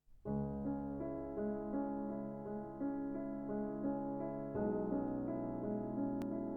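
Background piano music: a gentle keyboard piece with notes struck in an even pulse, and a change of chord about two-thirds of the way in.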